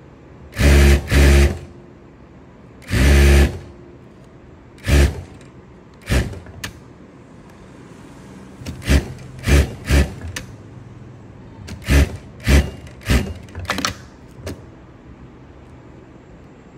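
Industrial flatbed sewing machine stitching in short bursts, a few stitches at a time with pauses between: two quick runs about a second in, a longer run around three seconds, then about a dozen brief runs that stop near the end.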